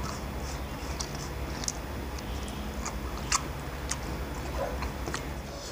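Eating by hand: fingers mixing rice on stainless steel plates and chewing, heard as scattered faint clicks with a few sharper ticks, over a low steady hum.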